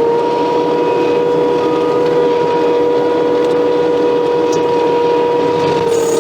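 Case skid steer running hard while driving a hydraulic stump grinder attachment: a steady, loud engine drone with a high whining tone that holds its pitch.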